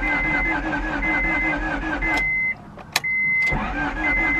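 Honda Prelude's H22 engine cranking on the starter with starting fluid sprayed in, turning over rhythmically without catching. The cranking stops a little past two seconds in, a click follows, and a second crank starts about a second later; a high electronic beep sounds on and off about once a second.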